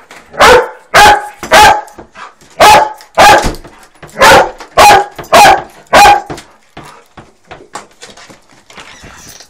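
A large black dog barking loudly, nine barks in three quick runs over about six seconds, then stopping. It is excited barking, set off every time she is told she is going out.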